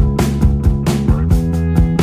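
Instrumental background music with a steady beat under sustained chords.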